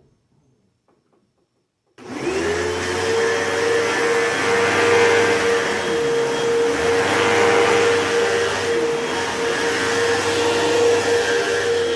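Hoover WindTunnel 2 Whole House Elite upright vacuum cleaner switched on about two seconds in. Its motor spins up with a short rise in pitch, then runs with a steady tone over a loud rush of air.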